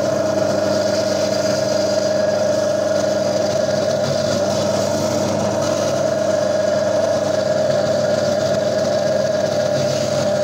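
Gryphon diamond bandsaw running with a steady whine as its diamond blade cuts through the coral skeleton and into the hard stone at its base. The even pitch and level hold throughout.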